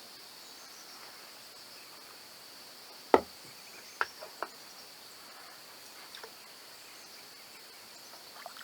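A steady, high-pitched chorus of insects, with a few sharp knocks about three and four seconds in, the first the loudest.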